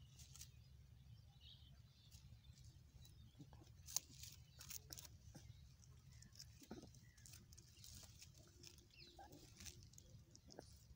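Near silence with faint rustling of dry straw and small scattered clicks as puppies shift about, and one sharper click about four seconds in.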